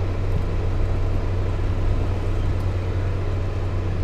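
Tractor engine running at a steady pace, heard from inside the cab as a constant low drone.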